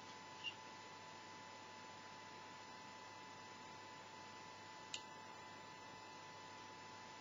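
Near silence: faint room tone with a steady thin hum, broken by two brief high ticks, one about half a second in and one about five seconds in.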